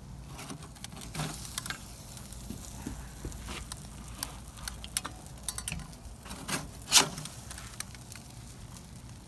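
Irregular clicks, taps and rustling from the finished smoked pork butt being handled at the kamado grill, with one sharper knock about seven seconds in.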